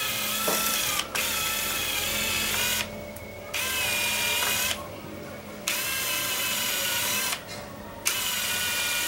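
Cordless drill running in repeated one- to two-second bursts with short pauses between them. It is drilling out the starter holes for a roller-shade mounting bracket.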